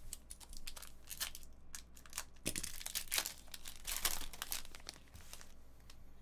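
Foil wrapper of a Panini Select basketball card pack being torn and crinkled open by hand: a dense run of crackles and tearing, thickest from about two and a half seconds in to about five and a half.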